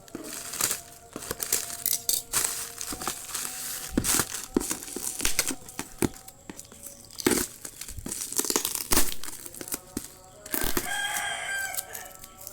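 Packaging being handled: irregular crackling, rustling and tearing. About ten and a half seconds in, a rooster crows once, for about a second and a half.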